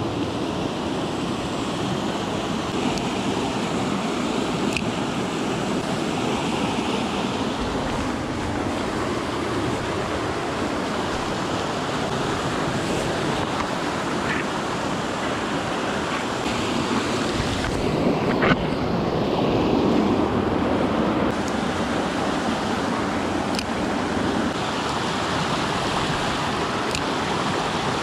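Fast-flowing mountain creek rushing over rocks and small cascades, a steady wash of water, with a few faint ticks. It swells a little louder about two-thirds of the way through.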